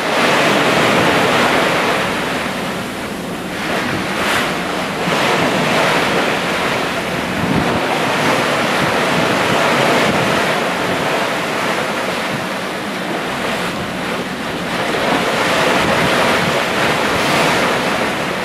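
Open-ocean waves washing, with wind over them: a steady rush of noise that swells and eases every several seconds.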